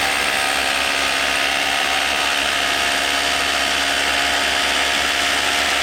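Electric power drill running continuously at full speed, starting and cutting off abruptly.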